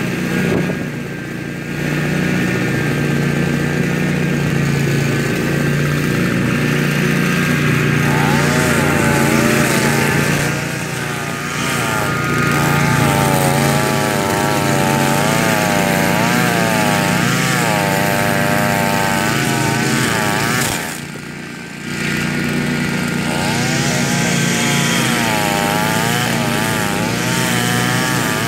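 Gas string trimmer engine running hard while cutting tall grass, its pitch wavering up and down as the line bites into the grass. The engine eases off briefly about a second in and again around twenty-one seconds.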